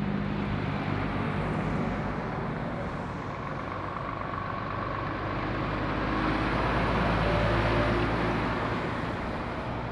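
Articulated lorries' diesel engines and tyres on the road as they go round a roundabout. The sound eases off after the first lorry, then swells again to its loudest about seven to eight seconds in as a second lorry passes close.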